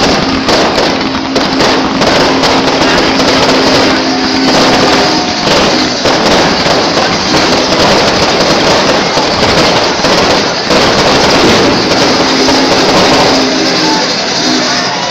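Fireworks finale: a dense, continuous barrage of bangs and crackling from many shells and ground fountains going off at once, with no let-up.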